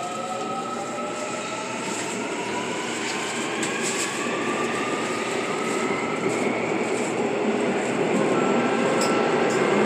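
Electric subway train's traction motors whining in several tones that rise slowly in pitch, as a train accelerates, over a steady rumble, heard inside a Seoul Line 2 car. The sound grows gradually louder.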